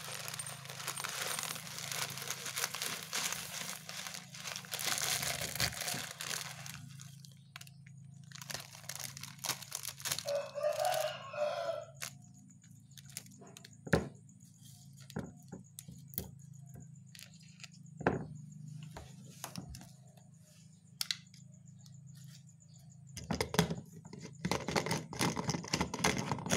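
Plastic instant-noodle seasoning sachet crinkling as its contents are shaken into a glass jar of crushed dry noodles, followed by scattered clicks and taps of handling, and a rustling scrape near the end as a plastic blender jar is handled on its base.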